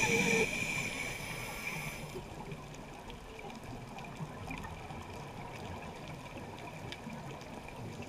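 A scuba diver breathing through a regulator underwater: a hissing inhale through the demand valve that stops about two seconds in, then a quieter stretch of low bubbling water noise.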